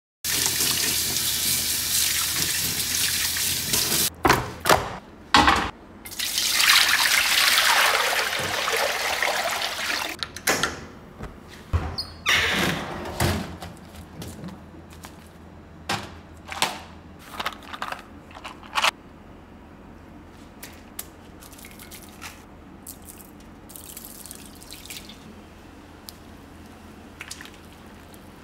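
Water running from a tap in two loud stretches, each a few seconds long. Then a run of short clicks and knocks from handling things in the kitchen, among them a refrigerator door.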